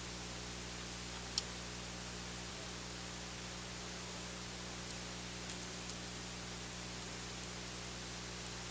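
Steady hiss with a low electrical hum under it, broken by one sharp click about a second and a half in and a couple of fainter ticks later on.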